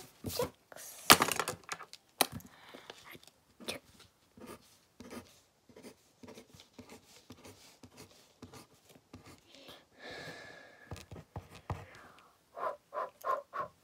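Eraser rubbing and scratching on paper in irregular short strokes as pen marks are erased. Near the end come a few short, evenly spaced vocal sounds.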